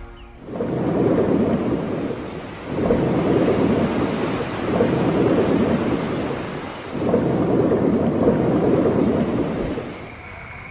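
A rumbling, rushing sound effect under a channel logo intro, swelling and fading in four long surges. A high ringing tone comes in near the end.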